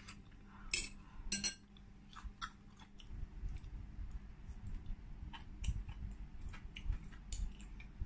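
Close-miked chewing and biting of shabu hot-pot food. A few sharp clicks come in the first second and a half, then steady wet chewing starts about three seconds in, as a fresh bite is taken.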